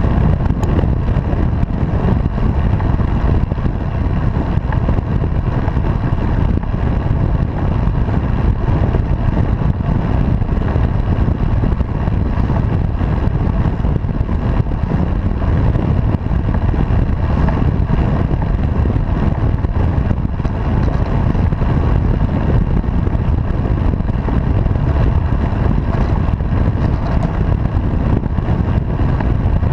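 Steady wind rushing over a bicycle-mounted camera's microphone while riding, mixed with tyre and road rumble.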